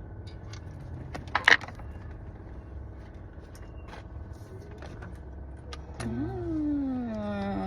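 Small clicks and handling noises of hand work on a car's steering-wheel assembly over a low steady hum, with one loud sharp click about a second and a half in. Near the end a drawn-out, voice-like wail slides down in pitch.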